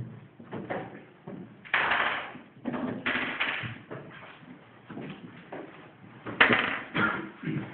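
Irregular knocks and scraping noises of people moving about a room, with louder ones about two, three and six and a half seconds in.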